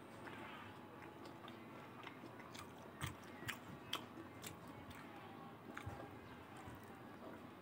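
Quiet close-up chewing of a mouthful of rice with potato fry and green leaves, with scattered soft wet mouth clicks, several of them in the middle.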